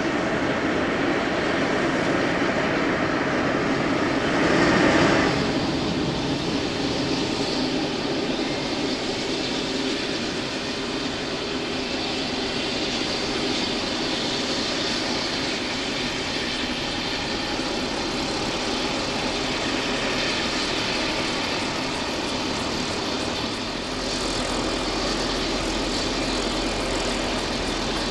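Bell 427 helicopter's twin Pratt & Whitney PW207D turboshaft engines running during start-up: a steady turbine rush with a brief louder swell about five seconds in.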